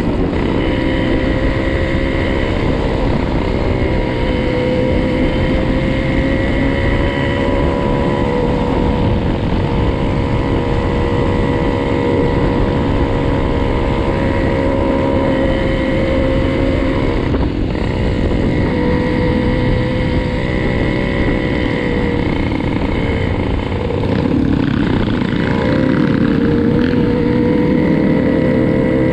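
Motorcycle engine running steadily at cruising speed. Late on, the revs drop briefly and then climb again.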